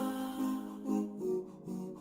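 Background music: a gentle plucked guitar tune, notes falling about twice a second.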